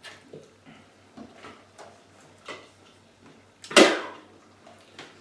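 Soft gulps as soda is chugged from a plastic Sprite bottle, then one loud knock about three and a half seconds in as the bottle is set down hard on the table.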